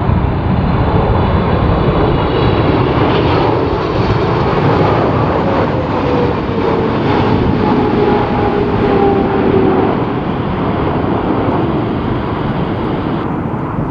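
Boeing 777-300ER's GE90 turbofan engines passing low and loud on final approach: a steady dense jet noise, with whining tones that slowly fall in pitch between about five and ten seconds in as the airliner goes by.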